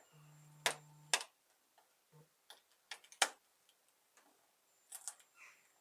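Scattered light clicks and taps, irregular and a second or so apart at most, the loudest about three seconds in. A low steady hum runs through the first second.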